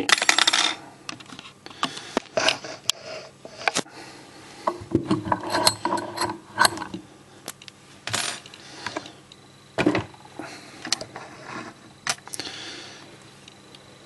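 Clicks, clinks and short scrapes of metal as an opened brass Master Lock Fortress padlock is loosened from a small bench vise and handled, with many sharp separate clicks and a few brief rattling spells.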